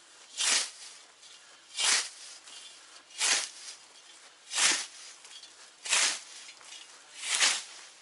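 Hand scythe cutting grass: six even swishing strokes, about one every second and a half.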